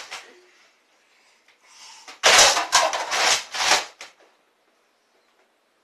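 Toy Nerf blaster firing a quick run of about four shots about two seconds in, all within under two seconds.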